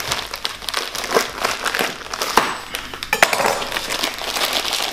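Taped parcel wrapping crinkling and crackling as it is worked and torn open by hand, with a steady run of small sharp crackles.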